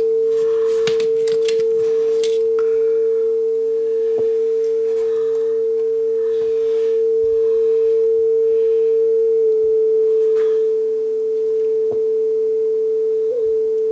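A steady 440 Hz test-tape tone playing back on a NAD 6155 cassette deck, running slightly sharp because the tape speed is a little high. About nine and a half seconds in its pitch drops a touch as the motor's speed trimmer is turned down, with a brief wobble near the end and a few faint clicks.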